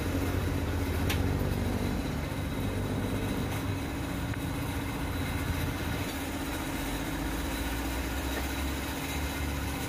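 Steady drone of workshop machinery: a low hum with a steady higher tone above it, running evenly.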